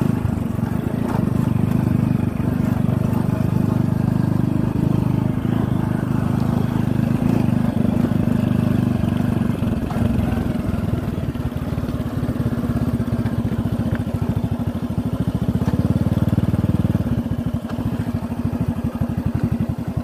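Motorcycle engine running under way at a steady speed. The engine note shifts a couple of times and drops near the end, where the firing pulses come through more distinctly.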